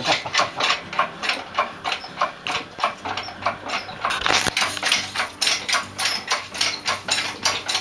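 Hand ratchet wrench clicking in quick, even strokes, about three to four clicks a second, turning a fastener on the engine; the clicks get sharper about four seconds in.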